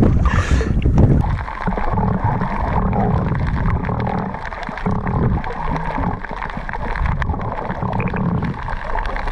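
A splash as the camera goes under, then the muffled underwater sound of the sea over a coral reef, with scattered faint clicks.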